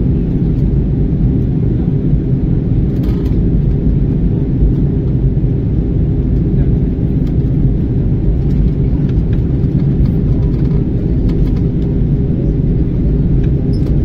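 Steady, loud low rumble of an Airbus A321's engines and airflow heard inside the passenger cabin during the descent to land.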